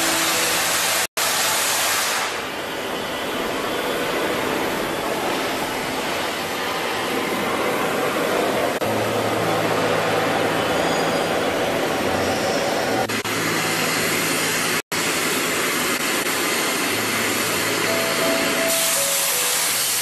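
CNC cutting machine's torch cutting through steel plate, a loud steady hiss with two brief dropouts, about a second in and near the fifteenth second.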